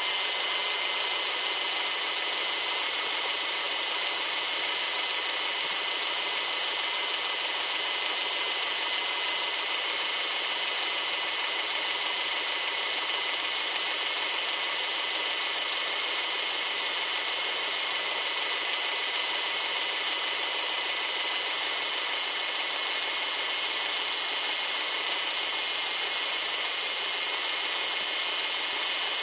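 Subaru EJ253 2.5-litre flat-four engine idling steadily, heard as an even, high-pitched hiss with a few steady tones and no change in speed.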